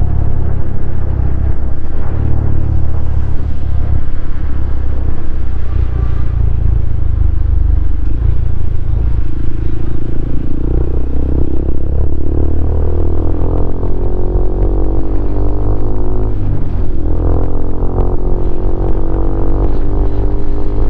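Honda CRF150L's single-cylinder four-stroke engine running through an aftermarket Norifumi Noctus T5 exhaust while riding. Its pitch rises and falls with the throttle from about halfway through.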